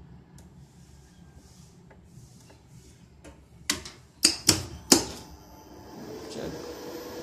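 Contactors or relays in an elevator control cabinet clacking, four sharp clacks in quick succession, followed by a steady electrical hum with a thin high whine.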